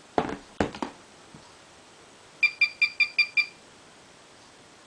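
A metal plate knocks twice as it is set down on a plastic antenna pad. About two and a half seconds in comes a quick run of six identical electronic bleeps, about five a second, from the pigeon-timing system's clock.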